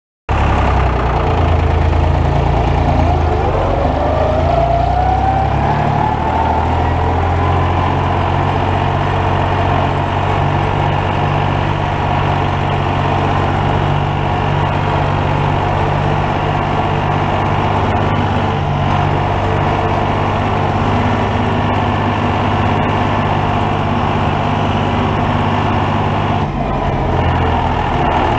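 International Harvester 533 tractor's diesel engine running steadily under way, heard from inside the cab. A whine rises in pitch over the first few seconds, and there is a brief dip in the sound near the end.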